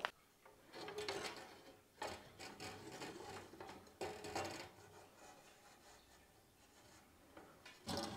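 Glass panels and the metal frame of a Wardian case being handled during assembly: faint rubbing and light knocks in a few short spells over the first half, and one more near the end.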